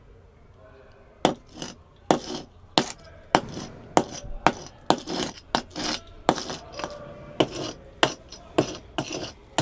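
A small metal hand tool scraping and chipping at a rough concrete wall in quick repeated strokes, about two or three a second, starting about a second in.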